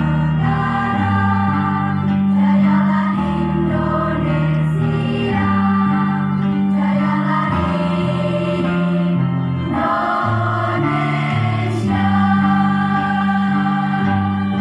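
Female choir singing a march in harmony, holding long chords that change every second or two, over a low instrumental bass line.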